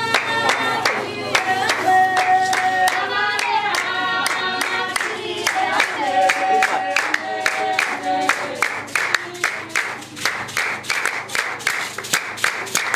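Basarwa (San) women singing together in overlapping held notes over quick, steady hand-clapping, as in a traditional San dance song. About eight seconds in the singing drops away and the clapping carries on alone.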